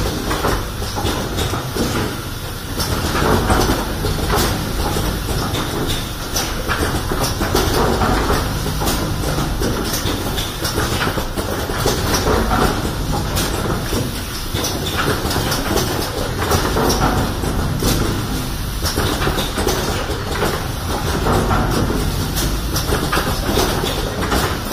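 Automatic rapid test kit assembly machine running: a steady mechanical clatter of dense clicks that swells in a repeating cycle about every two seconds.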